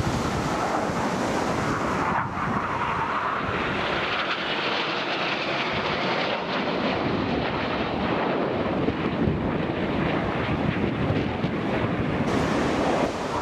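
BAE Hawk T1 jet trainers flying past in formation: a steady jet rush that rises in pitch and then falls again as they pass. Wind buffets the microphone throughout.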